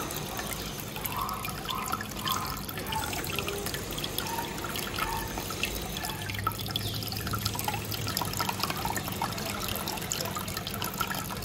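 Water trickling and splashing in a turtle tank, with many small drips, as red-eared sliders swim and feed at the surface.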